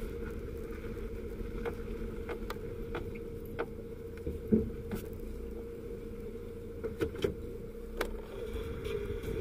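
Car cabin noise while driving: a steady engine and road hum with a held tone, and a scattered run of light clicks and knocks, the loudest about four and a half seconds in.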